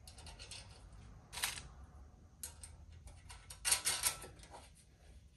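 Light metallic clicks and rattles of small bolts and nuts being handled and fitted into steel motorcycle frame pieces, in short clusters, the busiest a little under four seconds in.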